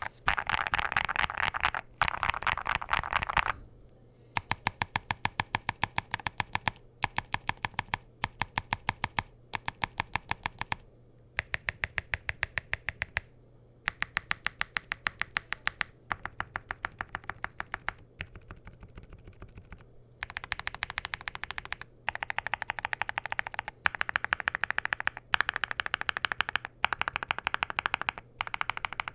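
Typing on a Qwertykeys QK80 MK2 mechanical keyboard with lubed Gateron Smoothie linear switches, ceramic Cerakey keycaps, a polycarbonate plate and a foam-filled aluminium gasket-mount case. Keystrokes come in quick runs broken by short pauses. They are softer for a moment a little past the middle, then louder and denser toward the end.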